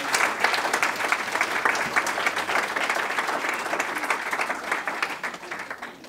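Audience clapping in applause, fading away near the end.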